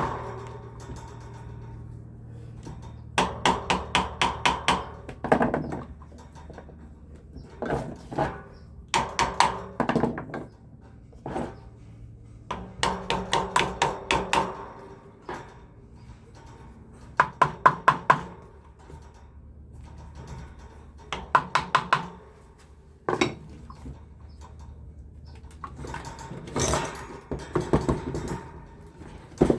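Metal tapping on a freshly reassembled fan motor: a screwdriver strikes it in quick runs of several taps with short pauses, working in each direction to free the locked-up motor and realign its bearings.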